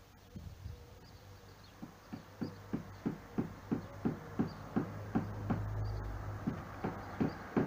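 A quick, even run of knocks, about three a second, starting about two seconds in, with a low hum under the middle part.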